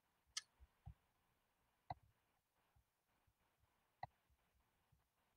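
Near silence in a small room, broken by three faint, sharp clicks: about half a second in, about two seconds in and about four seconds in.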